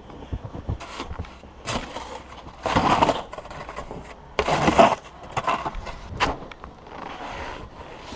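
Snow shovel working packed roof snow: a run of short, irregular strokes, with two longer, louder scrapes about a third of the way in and just past the middle.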